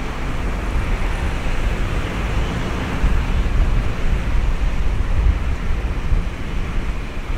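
Gusty wind buffeting the microphone over the steady rumble of an Airbus A350-900's Rolls-Royce Trent XWB jet engines as it approaches on final in a strong crosswind.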